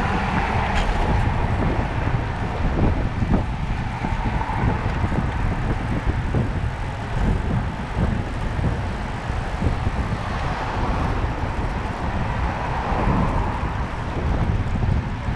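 Wind rushing and buffeting over the microphone of a camera riding on a moving bicycle, with the steady noise of city road traffic underneath.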